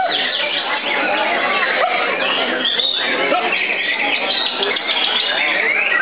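Dense, continuous chorus of caged white-rumped shamas (murai batu) singing at once, many fast overlapping whistled and chattering phrases.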